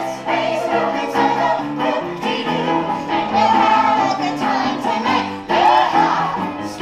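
Stage musical number: a group of singers in chorus over a live band, with a steady beat.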